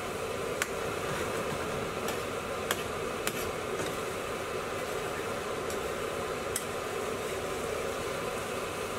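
Curry gravy sizzling in a frying pan over a gas flame, a steady hiss, with a few light clicks of a spoon knocking and scraping against the pan as it is stirred.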